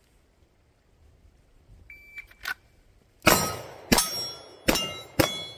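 Shot timer beeps about two seconds in. About a second later, four pistol shots in quick succession, roughly half a second apart, each with a steel target ringing after the hit.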